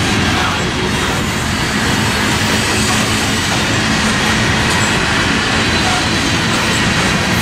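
Tank cars of a Norfolk Southern crude oil train rolling past close by: loud, steady noise of steel wheels running on the rails.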